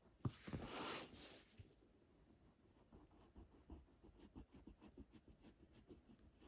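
Graphite pencil scratching faintly on paper in short strokes. About a quarter second in there is a knock, followed by about a second of paper rustling and sliding as the stack of sheets is turned on the table.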